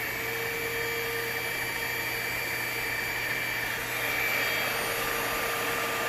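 Aposen H120 cordless stick vacuum's motor running steadily with a high whine, just after switching on.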